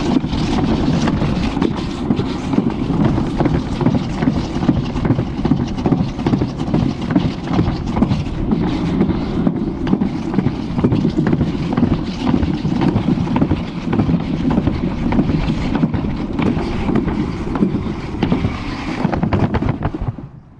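Alpine slide sled running down its track: a steady rough rolling noise with rapid small knocks, mixed with wind on the microphone. It drops away suddenly near the end as the sled comes to a stop at the bottom.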